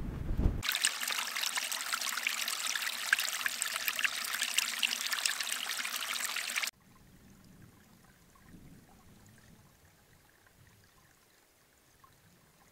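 A small stream trickling and splashing, which cuts off suddenly a little past halfway to a much quieter stretch with only faint low sounds. Wind buffets the microphone briefly at the very start.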